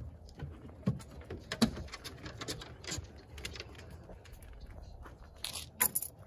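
A husky's footsteps on a hard floor, claws clicking and pattering irregularly, with a few louder knocks.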